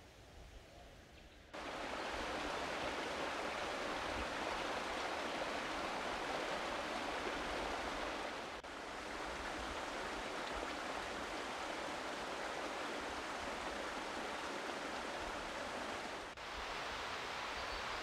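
Steady rush of a flowing mountain creek, setting in about a second and a half in, with two brief breaks.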